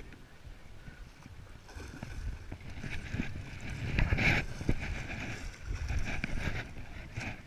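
Wind buffeting the microphone outdoors, with irregular knocks and handling noise and a hiss that swells about four seconds in.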